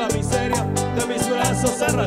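A live bachata band plays an instrumental passage between sung lines. A quick, steady high percussion beat at about six strokes a second runs over a moving bass line and plucked guitar melodies.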